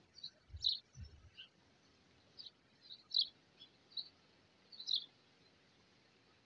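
Small birds chirping faintly outdoors: short, high chirps repeated about once a second over a light background hiss, with a couple of soft low thumps in the first second.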